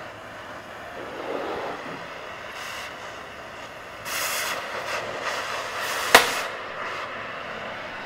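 Cutting torch hissing as it burns through steel, the hiss swelling and easing, with one sharp crack about six seconds in.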